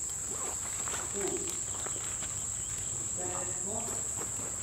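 Insects shrilling in one continuous, steady high-pitched drone, with faint voices under it.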